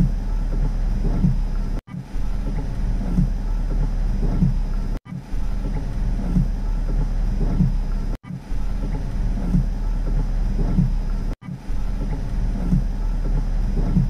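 Rain on a car's roof and windows heard from inside the car: a steady low rumble with a patter of drops. It cuts out for an instant about every three seconds.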